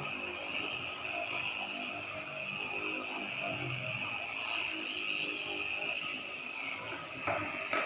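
Handheld electric dolphin massager running, a steady vibrating whir, cutting off near the end.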